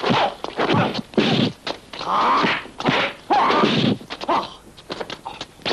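Kung fu fight sound effects: a rapid series of punch and kick whacks, mixed with the fighters' pitched shouts and grunts, tailing off into lighter hits near the end.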